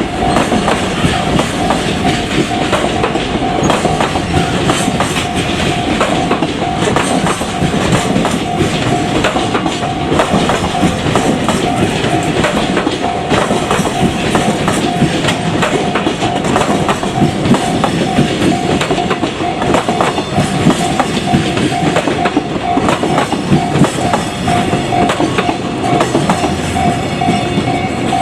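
Freight train wagons rolling past over the rails with a steady clickety-clack, while a Japanese level-crossing alarm rings continuously as a steady pulsing tone above the rail noise.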